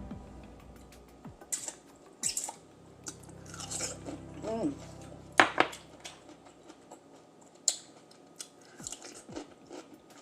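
Close-miked chewing and mouth sounds of someone eating, with scattered small clicks and crunches. One sharper crack comes about five seconds in.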